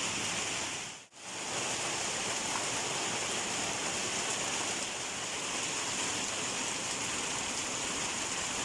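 Heavy rain falling, a steady hiss. It breaks off for a moment about a second in, then carries on.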